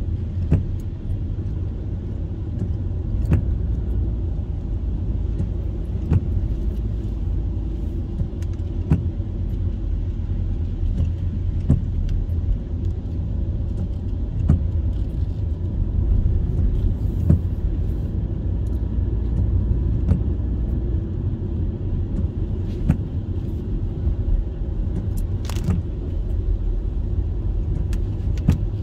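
A car driving on a wet road, heard from inside the cabin: steady low road rumble and tyre noise, with a short tap about every three seconds as the windshield wipers sweep.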